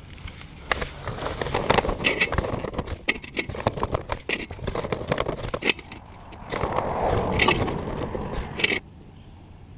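Knife cutting and tearing open a paper bag of charcoal briquettes, with crisp paper rustling and scattered clicks. It grows louder and rougher about two-thirds of the way in, then stops abruptly near the end.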